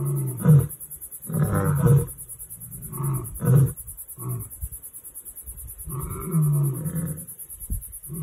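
Lion roaring: deep moaning calls. The longer ones come about a second in and again about six seconds in, and between and after them come shorter grunts.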